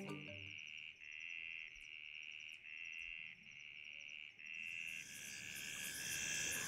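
Night insects trilling: a high trill comes in repeated bursts of under a second, over a faster, higher pulsing chirp.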